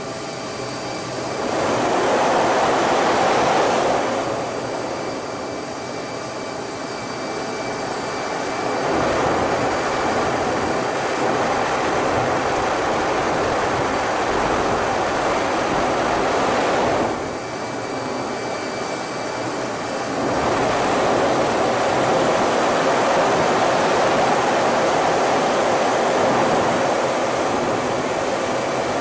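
Cockpit noise of an F-18 fighter jet manoeuvring: a loud rush of airflow and engine noise that swells and eases in waves. It is loud for a couple of seconds near the start, again from about eight to seventeen seconds, and again from about twenty seconds on. A faint steady high tone runs underneath.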